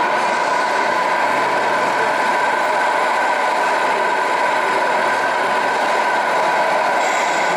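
A radio-control model truck's sound module playing a steady diesel-engine idle through its small speaker.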